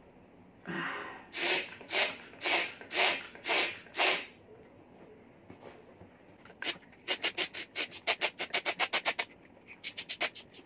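Mini hand pump inflating a mountain bike tyre through a Presta valve: rhythmic hissing pump strokes, about two a second at first, then after a pause a fast run of short strokes about six a second. The tyre is firming up as it fills.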